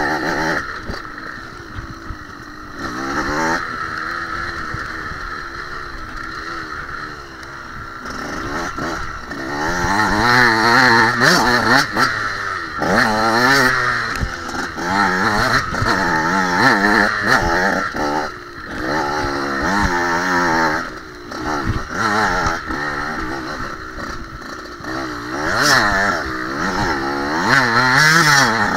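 Enduro motorcycle engine revving up and down repeatedly as the throttle is worked over rough trail ground. It runs quieter for the first several seconds, then louder with quick rises and falls in pitch.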